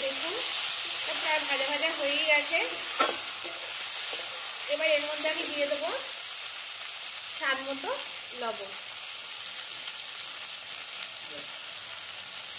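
Eggplant, tomato and onion sizzling in hot oil in a kadai, stirred and scraped with a metal spatula. Several short wavering pitched sounds come and go over the sizzle in the first two-thirds.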